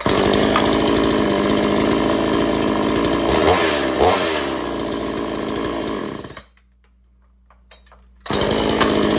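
Homelite Super XL two-stroke chainsaw running, revved up and down twice about three and a half to four seconds in. It stops a little after six seconds, then is running again about a second before the end.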